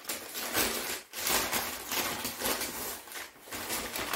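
A food package's wrapping rustling and crinkling in uneven bursts as it is handled and turned over.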